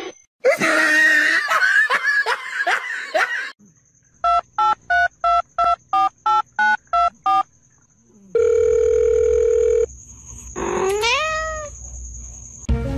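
A few seconds of scuffling, scratchy noise, then nine short evenly spaced telephone keypad beeps and a steady phone tone of about a second and a half, followed by a rising cat meow.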